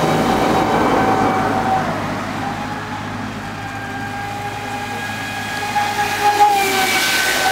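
Traxxas Spartan RC speed boat's brushless motor running at speed on a 4S LiPo: a steady high whine that fades as the boat runs off across the water and grows louder again as it comes back near the end.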